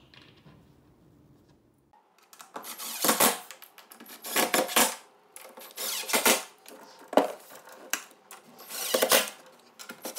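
Cordless impact driver driving a row of wood screws into a mattress panel: about six short bursts of rattling impacts, roughly a second and a half apart, starting about two seconds in.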